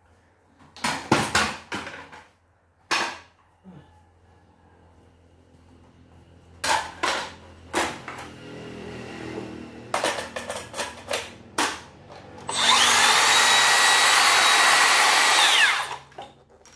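Cordless circular saw, an 18V brushless model with a 165 mm blade, run with no load: the motor whines up to speed, runs steadily for about three seconds near the end, then winds down. Before that come clicks and knocks of the tool being handled.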